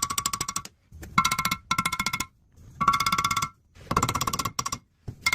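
Rapid metallic hammering on the snapped-off tapered crack-repair pins in a 318 Dodge cast-iron cylinder head, peening the stubs down flush. The strikes come in short quick bursts with a ringing tone, about eight bursts with brief pauses between.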